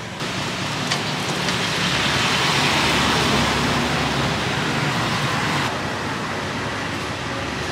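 Steady hiss and rumble of street traffic, with no distinct engine or event standing out. It steps up in level just after the start and drops back suddenly about three-quarters of the way through.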